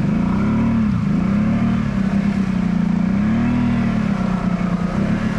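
Kawasaki Brute Force 750 ATV's V-twin engine revving up and down as it churns through deep muddy water, its pitch rising and falling several times.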